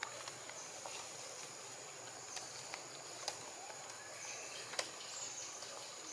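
Faint outdoor ambience: a steady high insect buzz under scattered light clicks and taps.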